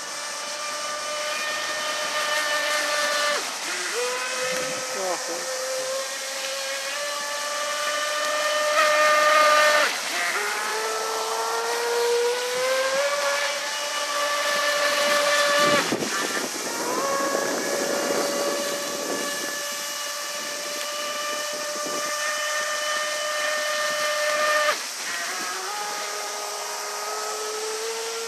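High-pitched whine of an RC speedboat's water-cooled 3060kv brushless inrunner motor running at speed, over the hiss of spray. Several times the pitch dips as the throttle is eased and then climbs back as it is opened again.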